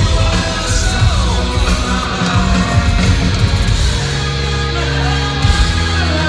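Rock band playing live on an amphitheater stage, with electric guitar and drums, heard from within the crowd.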